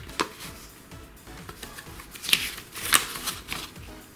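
Thin paper instruction booklet rustling as it is unfolded and its pages turned by hand, in scattered crisp rustles; the loudest come a little past two seconds and about three seconds in.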